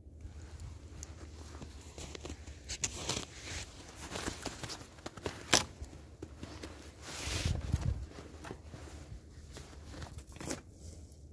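Footsteps crunching in snow and dry leaf litter as a person clambers in over low branches, with rustling of clothing and twigs. The steps come irregularly, with one sharper crack about halfway through.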